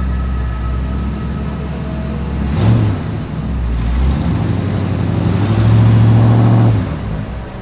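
Supercharged 6.2-litre V8 of a Chevrolet Camaro ZL1 idling, then revved: a short blip about a third of the way in, and a longer rev held for about a second near the end before dropping back.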